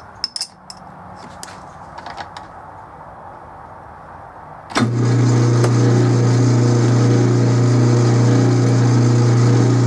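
A few small clicks while the tailstock is set. Then, about halfway through, the Atlas 12-inch lathe is switched on and its motor and spindle run with a loud, steady hum.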